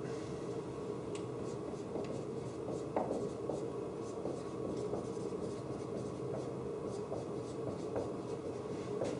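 Dry-erase marker writing on a whiteboard: a run of short scratchy strokes and light taps, one firmer tap about three seconds in, over a steady room hum.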